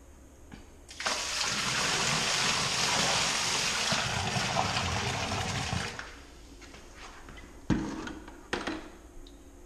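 A bucket of water poured into a sump pit: a loud gushing pour that starts about a second in and lasts about five seconds, followed by two short knocks.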